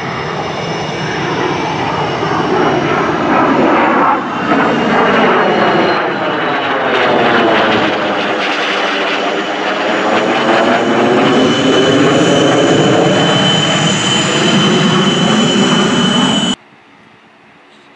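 F-22 Raptor's twin Pratt & Whitney F119 turbofan engines passing low overhead. A loud jet roar with a steady high whine over it, and a sweeping, phasing quality as the jet goes by. It cuts off suddenly near the end.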